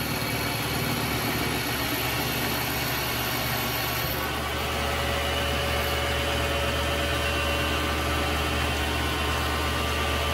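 Vevor MX 400 mini lathe running steadily, its motor and gears making a level hum and whine as a carbide insert turns an aluminium part under power feed. The tone shifts slightly about four seconds in.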